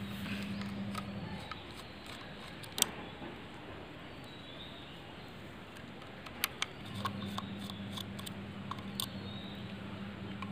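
A few sharp clicks of a steel screwdriver tip touching the screws and metal bracket of a portable air compressor. The loudest click comes about three seconds in. Under them a faint steady low hum stops about a second in and comes back about seven seconds in.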